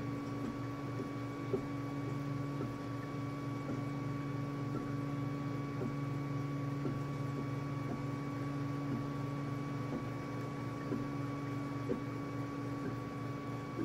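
Sintron kit 3D printer running a print: its motors hum and whine steadily as the print head moves, with faint ticks now and then.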